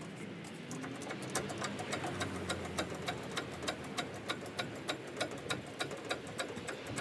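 Harbor Freight pickup-bed crane being worked to hoist a portable generator off the ground: a steady run of quick, even mechanical clicks, about four a second.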